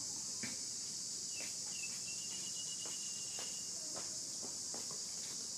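Steady high-pitched drone of insects, crickets or cicadas, running unchanged throughout. It comes with scattered faint clicks and a thin, high whistling tone held for about a second and a half in the middle.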